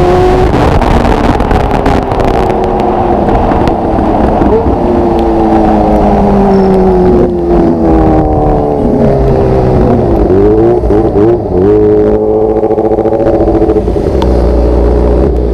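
Motorcycle engine running on the road, its pitch sliding down as it slows, then rising and falling with throttle blips about ten seconds in, over a steady rush of wind and road noise.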